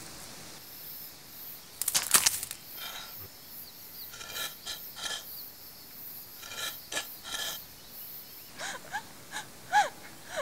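Sparse cartoon sound effects: a brief rustling scrape about two seconds in, a few short pitched tones in the middle, then a run of small squeaky chirps near the end.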